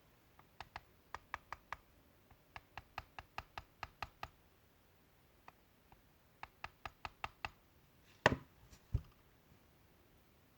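Three quick runs of small sharp clicks, several a second, as the blades and parts of a Wahl Magic Clip hair clipper are worked by hand while the blades are being levelled. A louder knock and a dull thump follow near the end.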